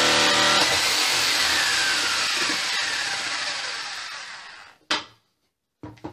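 Bosch PST electric jigsaw cutting through reclaimed pallet wood, starting abruptly and then fading away over about four seconds, with a faint whine sliding down in pitch. A few short knocks follow near the end.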